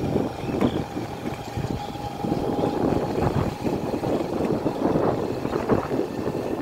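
Wind buffeting the microphone of a moving vehicle, mixed with engine and road noise.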